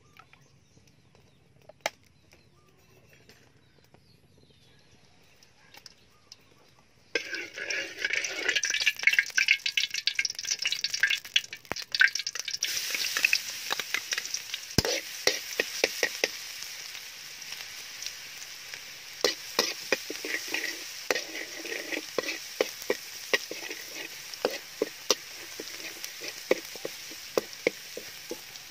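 Near quiet at first, then about a quarter of the way in chopped garlic hits hot oil in a steel wok and sizzles loudly. It keeps frying while a spatula stirs and scrapes it around the wok, with many sharp clicks against the metal.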